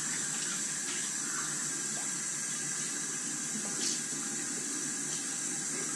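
Water running steadily from a bathroom sink tap, with a light click about four seconds in.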